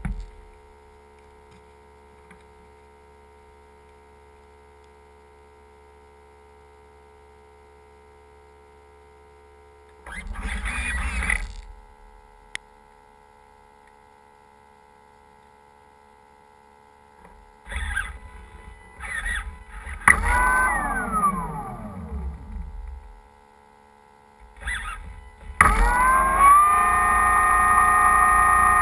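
Electric motor and propeller of a large RC float plane: a faint steady electrical hum, short throttle bursts about ten seconds in and again around eighteen to twenty-three seconds, one winding down in a falling whine, then near the end the motor spins up and holds a loud steady whine.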